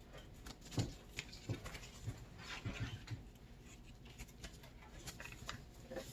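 Sheet of printer paper being folded and creased by hand: faint, scattered crinkles and rustles with a few soft knocks in the first few seconds.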